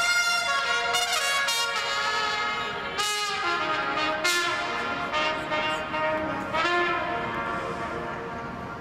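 Solo trumpet playing a melodic line of held and sliding notes with a few sharp, bright attacks, growing softer toward the end.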